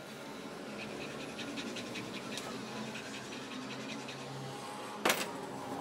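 A flat metal blade scraping a plastic battery lid in quick repeated strokes, then one sharp knock about five seconds in.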